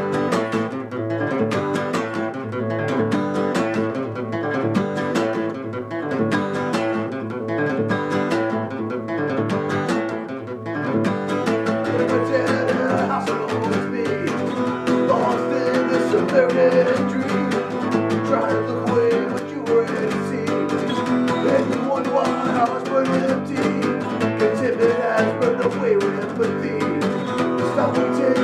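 Acoustic guitar strummed, playing a song. A higher melody line with wavering, bending pitch joins about twelve seconds in.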